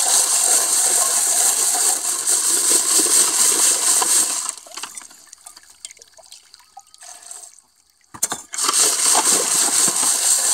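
Wet gravel churning and rattling as a Rotapan gold-recovery sieve pan is spun on top of a bucket, flushing the material with water. The rattle stops a little over four seconds in, giving way to a quieter stretch while water is poured over the rocks from a scoop. A click comes just after eight seconds, and the churning resumes.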